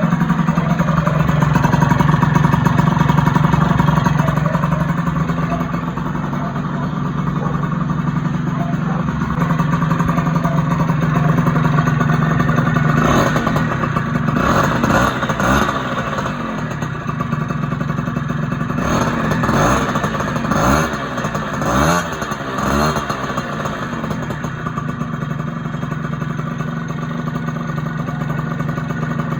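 Honda Dio scooter engine running through a new aftermarket exhaust pipe, with a steady idle. It is revved up and let fall back several times in the middle.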